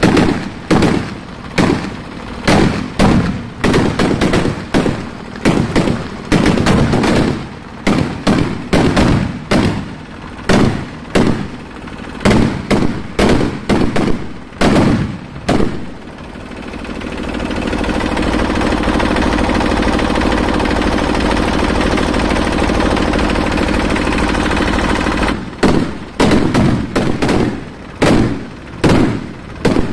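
Firecrackers bursting on the ground in rapid, irregular bangs, about two or three a second. About halfway through, the bangs give way for roughly nine seconds to a steady, loud rushing noise, then start again near the end.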